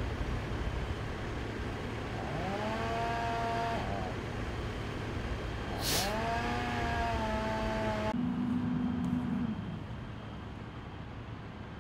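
Engine noise at a fire scene: a steady rumble, with an engine revving up twice and holding a steady pitch for a second or two each time. A short sharp hiss comes about six seconds in.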